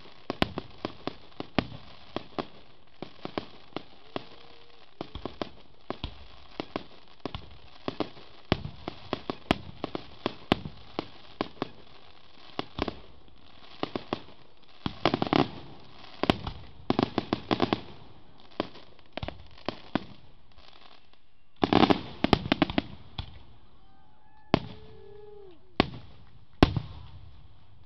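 Fireworks display: aerial shells bursting in a rapid, uneven series of sharp bangs, packed closest about halfway through and again about three-quarters of the way in.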